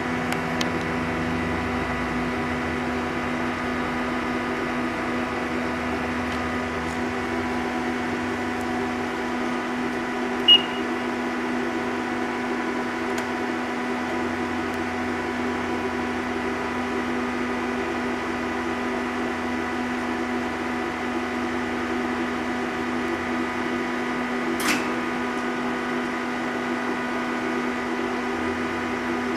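Hitachi Seiki HiTec-Turn 20S III CNC lathe powered up and running, a steady hum with a few fixed whining tones. A short sharp click comes about ten seconds in and another near the end.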